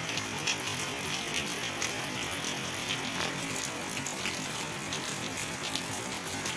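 Steady rain falling, an even hiss with frequent small sharp ticks of drops striking hard surfaces close by.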